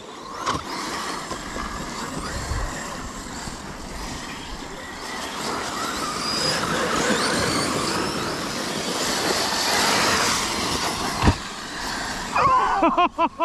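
Several electric RC cars racing: motors whining up and down in pitch over the rush of tyres on dirt. One thump about eleven seconds in, and a rapid pulsing sound starting near the end.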